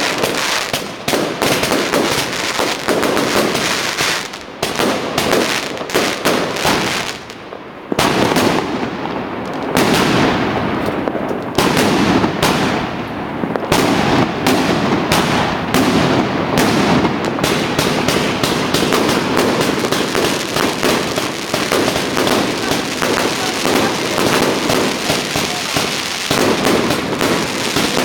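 Many fireworks and firecrackers going off at once, a dense run of overlapping bangs and crackles, with a short lull about seven seconds in.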